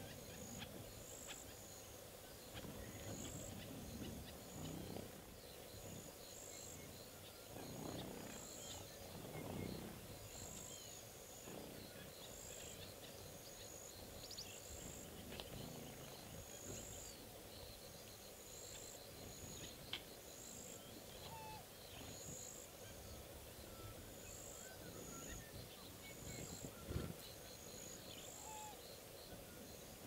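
Faint outdoor ambience: a short high chirp repeats evenly about once every second and a bit, over a soft background with a few low rumbles and scattered faint short calls.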